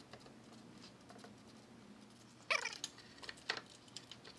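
A short squeal falling quickly in pitch about halfway through, then a few light metallic clicks as a socket on a long extension is fitted to a nut on the exhaust manifold.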